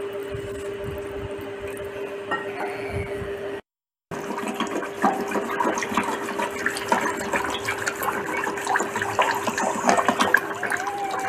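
Water poured from a small steel cup into curd in a steel bowl, a steady pour. After a brief dropout about four seconds in, a long-handled spoon whisks the curd against the steel bowl in rapid clinking and scraping strokes, over a steady hum.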